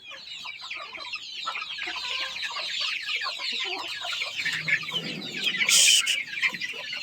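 A flock of desi chickens with chicks: dense, continuous peeping and clucking as the birds settle onto their roosting perches at dusk. A brief rush of noise about six seconds in is the loudest moment.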